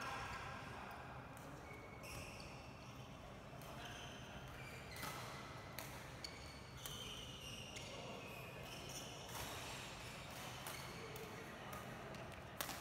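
Badminton doubles rally: irregular sharp racket strikes on the shuttlecock mixed with frequent short high squeaks of court shoes on the court floor.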